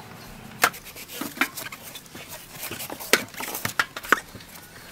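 Knives peeling and cutting the rind off yellow melons: a run of sharp knife strokes and clicks at irregular intervals, about six in all, with scraping between them.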